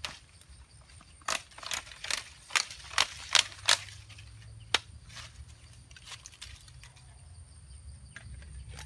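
A machete chopping into plant stems: a quick run of about seven sharp chops, one more a second later, then only faint ticks.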